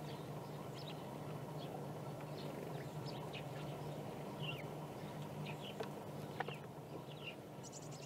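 Small songbirds chirping: scattered short, high calls over a steady low background hum, with two sharp clicks a little past the middle.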